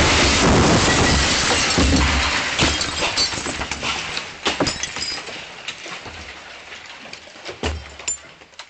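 An explosion's blast goes off, followed by a long clatter of shattered glass and debris raining down, with scattered clinks and knocks dying away over about eight seconds.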